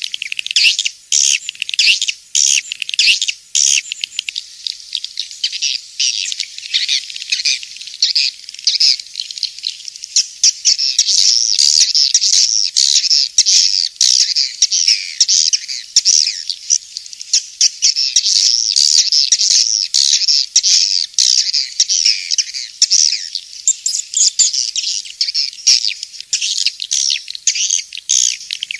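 Swiftlet lure call: a dense, unbroken stream of high chirps and twitters from many swiftlets, the recorded call played from swiftlet houses to draw the birds in to roost and nest.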